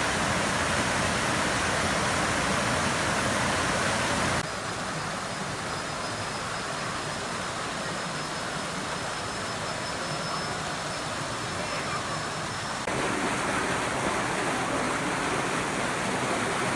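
Waterfall's steady rushing water. It drops sharply in level about four seconds in and jumps back up again near thirteen seconds.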